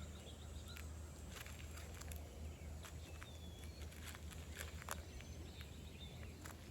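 A chipmunk eating: irregular sharp little clicks and crackles as it nibbles and handles its food. A steady low rumble runs underneath, and there are a couple of faint short bird chirps.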